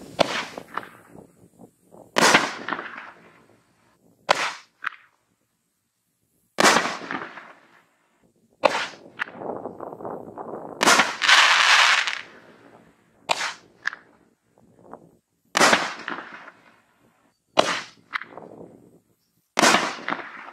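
Raccoon Fireworks 6-inch Tiger Force shells firing: a sharp bang about every two seconds, each trailing off, as shells launch and burst in turn. A longer sizzling stretch comes near the middle.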